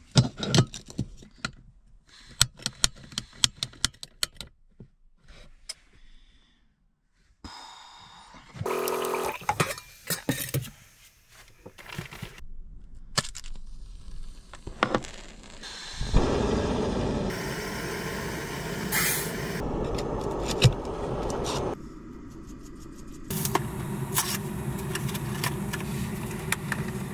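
Clicks and clatter of a backpacking gas canister stove being screwed on and handled, then about sixteen seconds in the burner lights and runs with a steady gas hiss, dipping briefly a few seconds later before going on.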